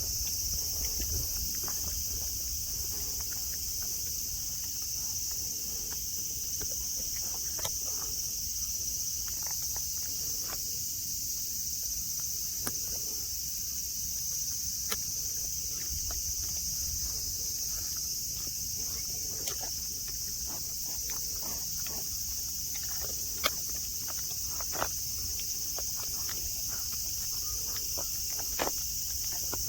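Cicadas singing in a steady, unbroken high drone, with scattered sharp ticks and clicks over it.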